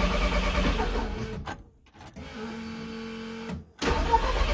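Starter motor cranking the supercharged engine of a widebody VW Scirocco in short bumps without it catching: a hard cold start, which the owner puts down to his own poor cold-start tuning. The cranking stops about a second and a half in, a quieter steady hum follows, and the cranking starts again near the end.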